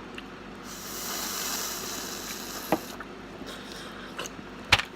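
Eating boiled crawfish: a wet, hissing slurp lasting about two seconds, then sharp cracks of shell, the loudest near the end.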